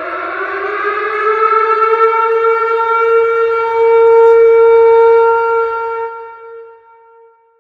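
Tornado siren wailing: its tone keeps climbing and then holds at a steady pitch, swells to its loudest about halfway through, and fades away near the end.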